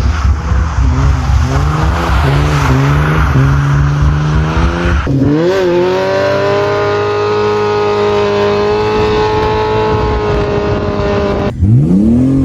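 Car engines revving in a run of short clips: first a series of quick blips up and down, then an engine held at high revs and creeping slowly higher, then another rev that climbs and falls away.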